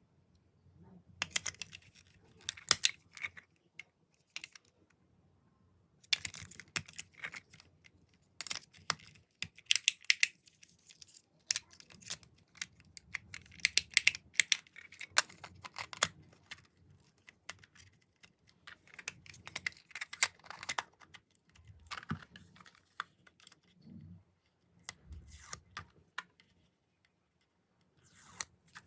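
Rapid clicking in bursts of a few seconds, with short pauses between them.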